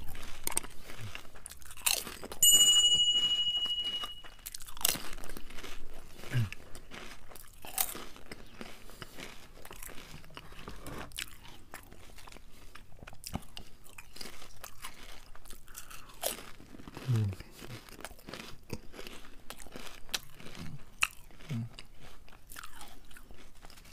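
Crisp potato chips crunching as they are bitten and chewed, in close-up, many sharp crunches. About two seconds in, a high, steady electronic tone sounds for about two seconds and fades out.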